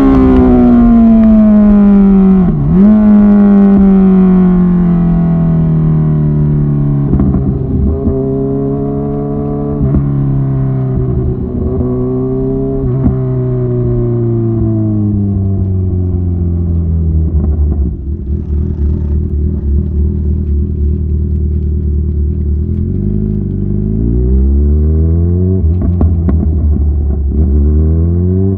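Kawasaki Ninja 1000SX's inline-four engine through Lextek headers and an Austin Racing end can, winding down on the overrun: the pitch falls steadily with a few brief jumps up on the way down, with scattered crackles. It then runs low and steady, with two short revs near the end.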